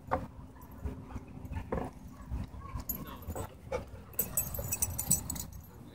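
Dogs playing together, making short scattered vocal sounds, with a patch of high crackling from about four seconds in.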